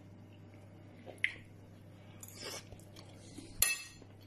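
Cutlery on a plate: a few separate clicks and a soft scrape, with a sharper clink and a brief ringing near the end.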